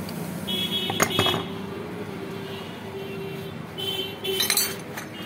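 Steel tool clinking and tapping against the metal hub of an e-rickshaw's rear wheel while prying off the hub's centre cap. Each hit leaves a short metallic ring, coming in two clusters, about a second in and again near four seconds.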